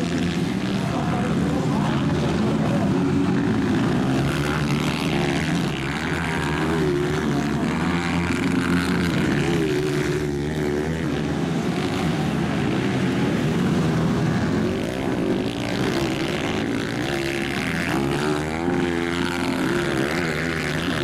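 230cc dirt bike engines racing, several at once, their pitch rising and falling again and again as the riders open and close the throttle through the turns.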